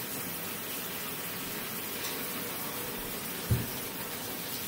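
Shower water running steadily, with one brief low thump about three and a half seconds in.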